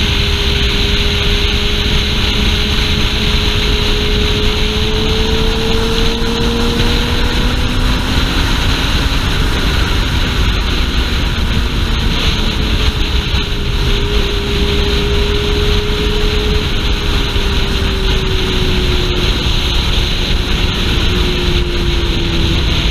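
Suzuki GSX-R sportbike's inline-four engine running at cruising speed under heavy wind noise on the helmet-mounted camera's microphone. The engine pitch climbs slowly over the first several seconds, then eases down slowly later on.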